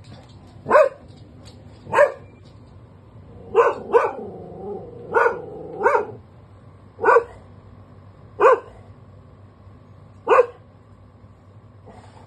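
Labradoodle barking on guard: about nine single, sharp barks spaced a second or so apart, with a brief drawn-out rumble between two barks about four seconds in.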